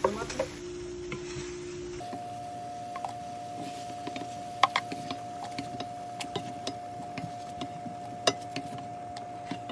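Scattered light clicks and taps of ingredients and utensils being handled at a blender while a salsa is put together, with two sharper knocks about four and a half and eight seconds in. A faint steady hum runs underneath.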